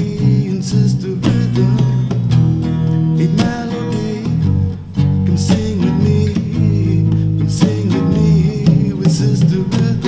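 Background music, with held bass notes under a plucked-string melody.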